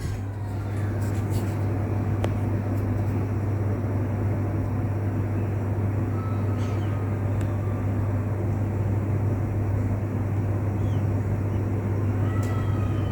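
COSA RF/4S-YH ceiling fan running steadily: a constant low motor hum under an even rush of moving air.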